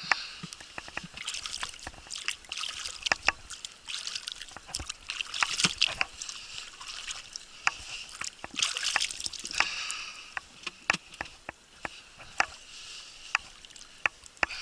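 Water sloshing and trickling around a small boat, with many irregular sharp clicks and knocks.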